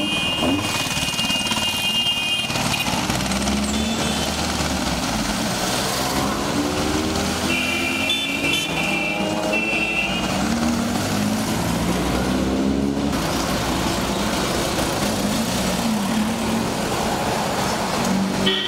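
A convoy of off-road 4x4 jeeps driving past one after another, their engine notes rising and falling as each goes by. High steady tones sound twice, at the start and again about eight seconds in.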